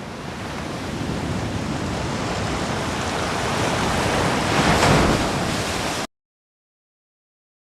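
A steady rushing noise, like surf, that swells to its loudest about five seconds in, then cuts off abruptly into dead silence for the last second and a half.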